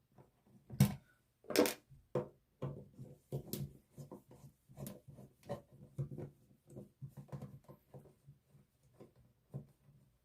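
Screwdriver and hands working a wall toggle switch's cover plate off: a string of small clicks, scrapes and knocks, the two loudest about a second in.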